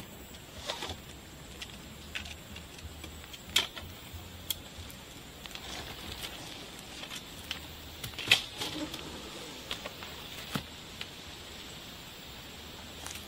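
Scattered short knocks and clicks, a second or more apart and the loudest a little past the middle, over a steady background hiss.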